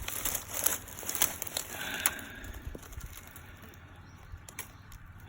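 Scattered rustling and crackling close to the microphone, thickest in the first two seconds and then dying down.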